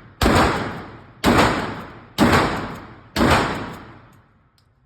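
A 12-gauge shotgun is fired four times, about a second apart. Each loud blast fades out over roughly a second.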